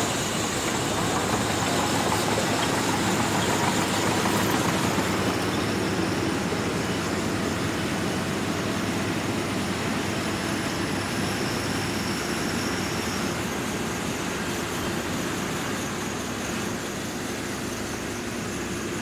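Shantui DH17C2 bulldozer's diesel engine running steadily at work, a continuous heavy mechanical din that eases slightly toward the end.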